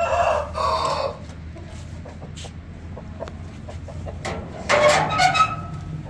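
Aseel roosters crowing, one crow at the start and another about four and a half seconds in, over a steady low hum.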